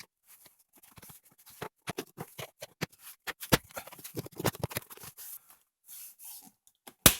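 Plastic door sill scuff plate being handled and pressed onto its clips: scattered plastic taps, scrapes and clicks, with a loud sharp snap near the end as a clip seats.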